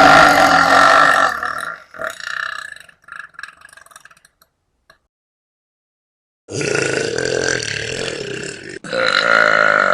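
Young women burping loudly on purpose, long drawn-out belches. One trails off in the first two seconds, then after about three seconds of silence two more long burps follow one right after the other.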